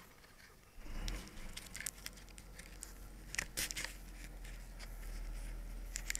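Dry grass stalks crackling and ticking against a camera lying in stubble, over a steady low rumble that starts about a second in.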